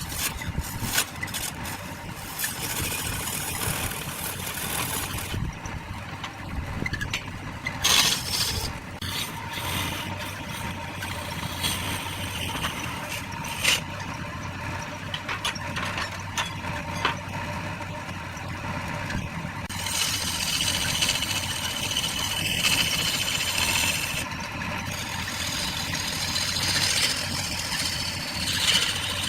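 Wood lathe running with a steady motor hum, with scattered sharp knocks and, at times, the hissing scrape of a turning tool cutting into the wood.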